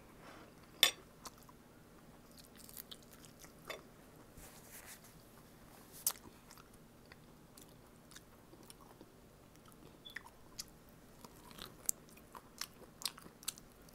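Close-up mouth sounds of eating boiled pork: chewing with scattered wet clicks and smacks, and a sharper click about a second in. The clicking grows busier near the end as a chunk of pork on the bone is bitten into.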